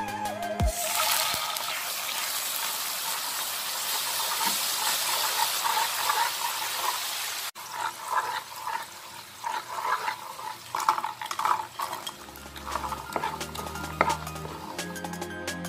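Sugar syrup bubbling and sizzling in a nonstick pan as it cooks into caramel, with a wooden spatula stirring and scraping through it. The sizzle is loud at first and drops off suddenly about halfway, leaving quieter bubbling and frequent scrapes of the spatula.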